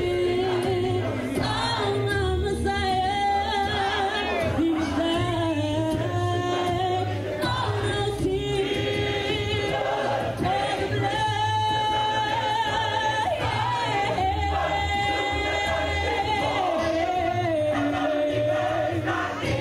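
Gospel choir singing, with lead singers on microphones carrying the melody over the massed choir, held notes wavering with vibrato.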